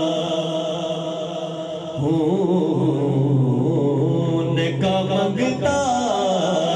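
Naat sung unaccompanied by a man's voice through a microphone and PA system. A steady held note comes first, then about two seconds in a louder voice takes up a long, wavering melismatic line.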